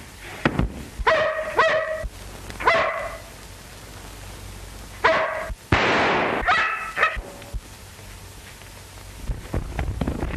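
German shepherd dog barking and yelping in four short bursts over the first seven seconds, with a sharp noisy burst just before the fourth.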